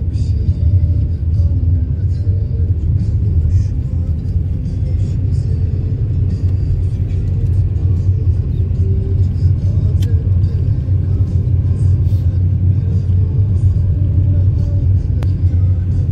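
Car driving along at road speed, heard from inside the cabin: a steady low rumble of engine and tyres on asphalt.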